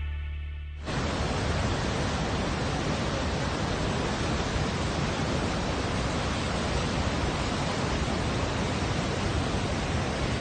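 Steady, even rush of the American Falls at Niagara Falls, heard at the brink of the falls. Background music fades out about a second in, and the water sound stops abruptly at the end.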